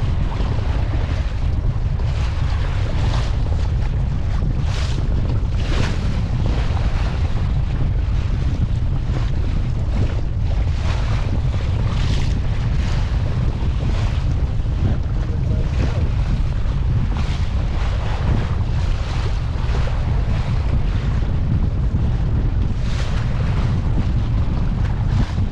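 Strong wind buffeting the microphone on a sailboat under way in a gale: a steady low rumble, with irregular louder rushes of hiss from water and wind rushing past.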